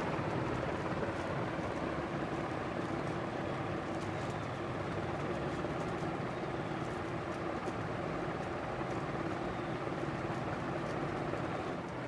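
Encon Crompton Greaves Princess ceiling fan running steadily: an even whoosh of air from the spinning blades with a low motor hum underneath.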